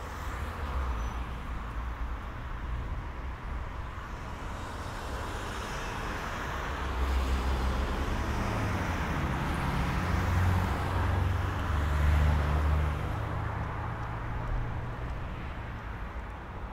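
Street traffic ambience: a steady hiss of passing vehicles with a low engine rumble that swells in the middle and eases off near the end.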